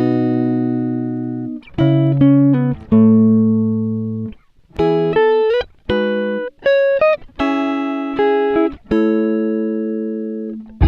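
Music: a guitar playing chords, each one struck and left to ring out, with quick short notes between the chord changes.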